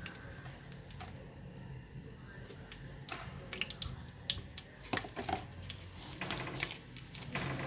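Fenugreek and chilli frying in hot oil in a cooker, giving a faint steady sizzle, with scattered short clicks and taps of a spoon against the pot as the spices are added and stirred.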